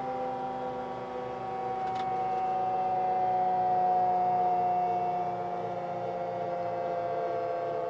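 Bell 212 helicopter's turbine and rotor whine, heard from inside the cabin, a steady multi-tone hum that slowly falls in pitch as it winds down after shutdown. A faint click about two seconds in.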